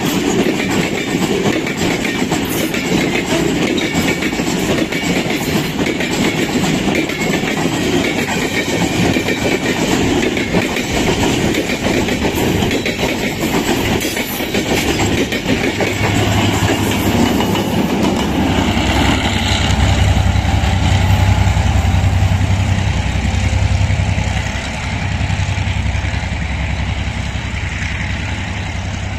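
Freight train of tank wagons and covered goods wagons rolling past, its wheels clattering over the rail joints. From about halfway a diesel locomotive's deep engine drone comes in and grows loud, then eases off near the end.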